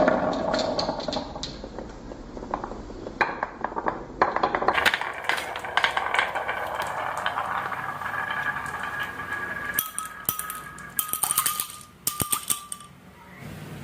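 Marbles rolling and clattering down a marble run, with many quick clicks and clinks as they knock against the track and each other, and a dense flurry of clicks near the end.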